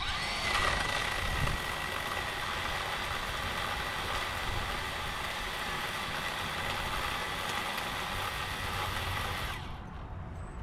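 A power saw running steadily while cutting dead tree branches, with a faint steady whine over a rough buzz; it stops abruptly near the end.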